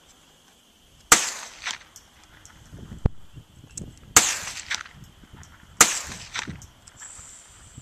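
Sharp metallic clicks of .22 rimfire cartridges being handled and dropped one by one into a rifle's tubular magazine, four separate clicks spaced a second or two apart.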